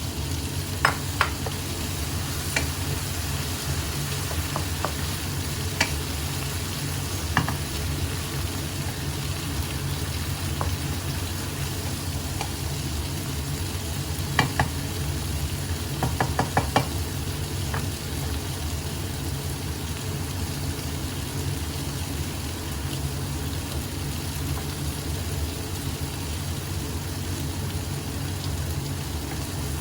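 Asparagus stir-frying with shrimp paste in a pan: a steady sizzle under a low hum, with a utensil clinking against the pan several times in the first half.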